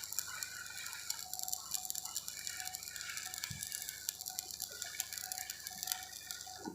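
Electric arc welding: the arc crackling and sputtering in a fast, dense stream of small clicks.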